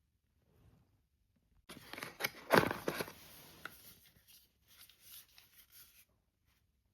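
Packaging being opened by hand: a burst of tearing and rustling begins about two seconds in, loudest just after, then lighter rustling and handling that stops about a second before the end.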